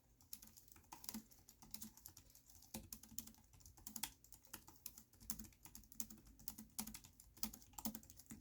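Quiet typing on a Bluetooth keyboard with laptop-style keys: a steady run of soft key clicks, several a second.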